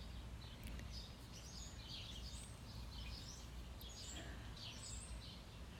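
Birds chirping, many short high calls scattered throughout, over a steady low rumble of background noise.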